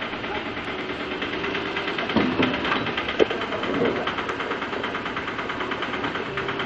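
Auto-rickshaw's small engine idling with a steady, rhythmic chugging. A few knocks ring out around the middle, the sharpest about three seconds in.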